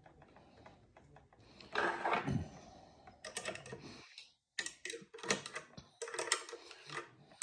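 A wrench turning a nut on a threaded rod: quick bursts of sharp metallic clicking from about three seconds in, as the nut is tightened to press a control arm onto its shaft. A short voice sound comes about two seconds in.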